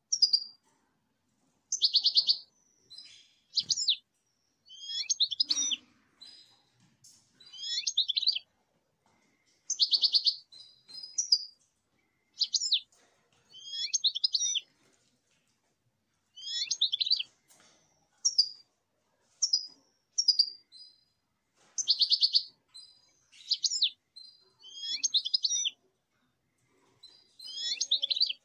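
Common linnet singing: high, fast twittering phrases of trills and whistles, each about a second long, repeated every second or two with short pauses between.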